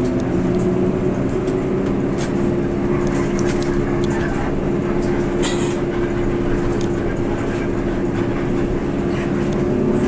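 Coach bus's diesel engine running steadily at cruising speed, heard from inside the cabin up front as a steady low drone. Small rattles and clicks come through now and then, with a brief hiss a little past halfway.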